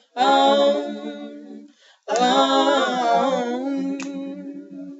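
A small group of girls singing a cappella in harmony, drawing out two long held phrases; the second note is sustained and slowly fades near the end.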